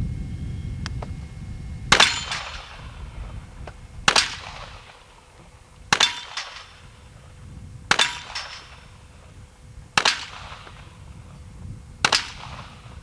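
.38 revolver fired six times at a steady pace, about two seconds between shots, each shot followed by a short echo.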